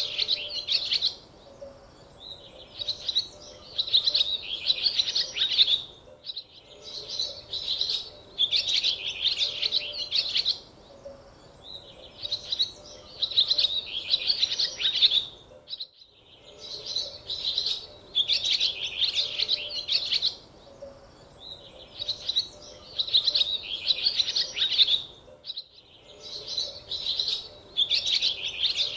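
Birds chirping in clusters of rapid high chirps, each a second or two long, with short pauses between them.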